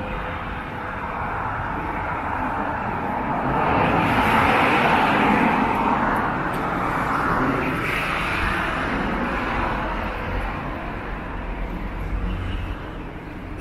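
A road vehicle passing close by in the street, its noise swelling to a peak about four seconds in and fading slowly near the end.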